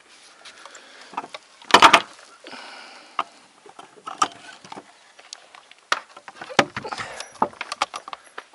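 Wooden roof battens knocking and clattering as they are handled. There is a loud cluster of knocks about two seconds in and a scatter of sharper knocks between about six and seven and a half seconds.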